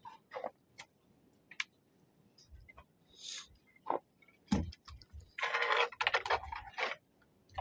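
Irregular crunching and clicking footsteps on snow-covered ground, with a louder noisy burst lasting about a second and a half near the end.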